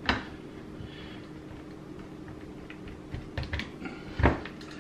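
Sharp clicks and taps of a screwdriver and putty knife prying at the sheet-metal retaining tabs of a dishwasher soap dispenser in the stainless inner door. There is one strike at the start, a quick run of clicks about three and a half seconds in, and the loudest knock a little after four seconds.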